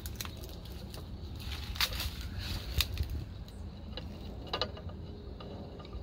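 Several sharp metallic clicks and snaps, irregularly spaced, from the wire of a suet-cage bird feeder being handled and cut with clippers, over a low steady rumble.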